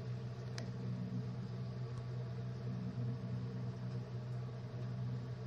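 A steady low background hum, with one faint click about half a second in.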